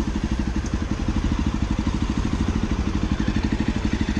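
JAWA Perak Bobber's 334cc liquid-cooled single-cylinder engine idling with a steady, even beat.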